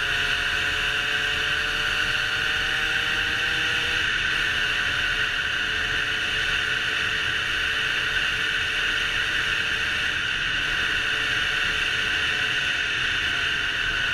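Derbi Senda 50's two-stroke single-cylinder engine pulling on the move under a steady hiss of wind noise. Its pitch climbs slowly over the first four seconds, breaks off, then holds steady.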